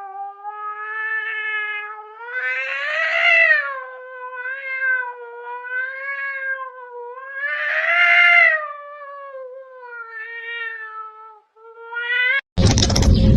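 A cat's long, drawn-out yowl that wavers in pitch and swells louder twice. It breaks off once and briefly resumes near the end, where a sudden loud, noisy sound takes over.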